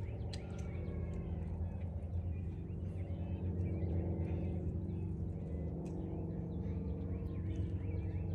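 Outdoor ambience: a steady low engine hum with small birds chirping now and then over it.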